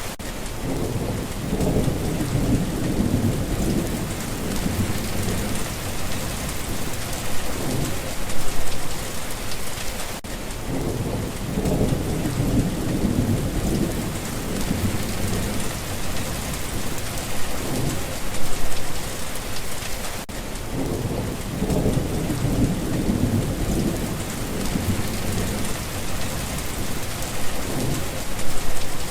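Steady rain falling, with low rolling rumbles of thunder that swell and fade about every ten seconds, as the same short stretch of storm recording repeats.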